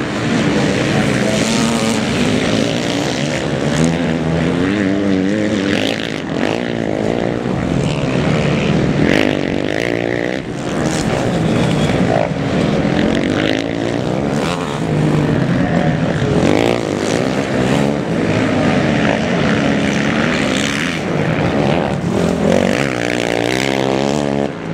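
A pack of motocross motorcycles at the start line, their engines idling and being blipped and revved as they wait for the start, with the pitch of the revs wavering up and down.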